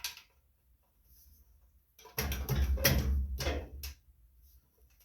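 Sheet-metal engine shroud being shifted and handled while its bolts are lined up: a burst of clattering and knocking of about two seconds near the middle, after a quiet start.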